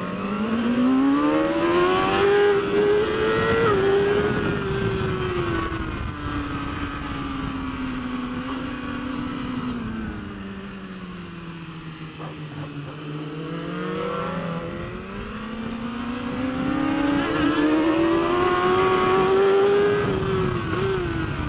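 BMW S1000RR superbike's 999 cc inline-four engine under racing load. It revs up hard, holds high revs, and winds down into a slow stretch about halfway through. Then it revs up and holds high again, dropping sharply near the end.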